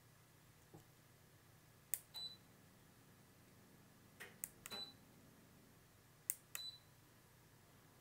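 Three presses of a tactile push button, about two seconds apart, each a sharp click followed a moment later by a short high beep from the air conditioner as it acknowledges the infrared command.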